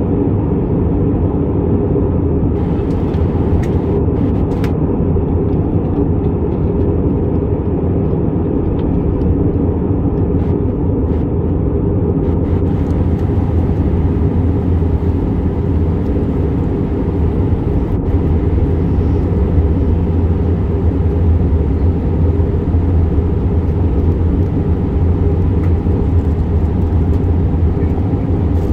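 Airbus A319-112 cabin noise in flight: a steady low drone from its CFM56 turbofans mixed with the rush of air over the fuselage, heard from inside the passenger cabin.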